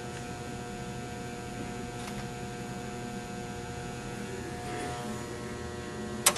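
Steady electrical hum from test-bench power equipment, made of several fixed tones. A single sharp click comes near the end.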